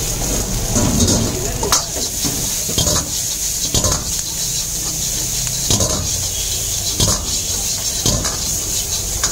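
Stir-frying in an iron wok over a gas burner: a steady sizzling hiss, with a metal utensil clanking and scraping against the wok several times as the food is tossed.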